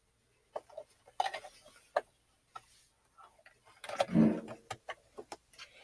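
Scattered small plastic clicks and taps as the bobbin cover of a Brother CS-6000i sewing machine is worked off by hand. A short vocal sound about four seconds in is the loudest moment.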